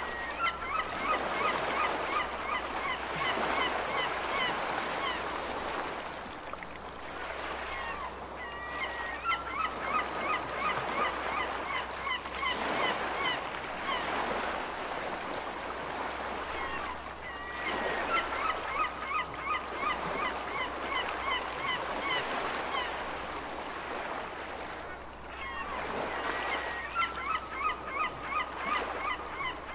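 Ocean surf washing in a steady rising and falling hiss, with gulls calling over it in quick runs of short, sharp notes that come in bouts about every nine seconds.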